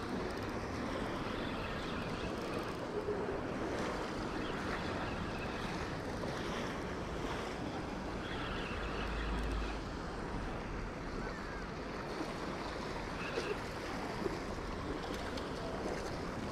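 Small surf washing steadily onto a sandy beach, with a few short ticks late on.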